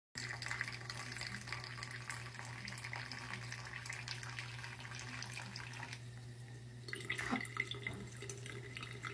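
Water trickling and dripping from a bathroom sink faucet into the basin, with scattered small drips over a steady low hum.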